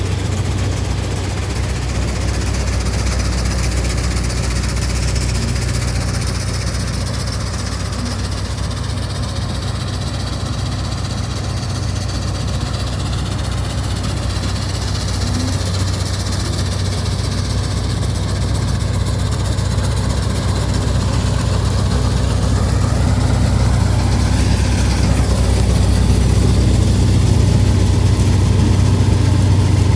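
Heavy diesel engine of farm machinery running steadily with a deep hum, getting a little louder over the last third.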